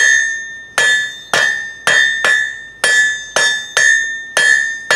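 Hand hammer striking red-hot steel on an anvil, about two blows a second, each blow leaving the anvil ringing with a clear high tone. The bar is being drawn out to a taper.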